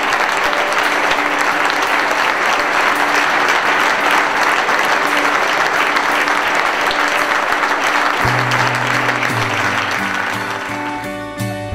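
A large audience applauding steadily, fading out near the end as music comes in about eight seconds in.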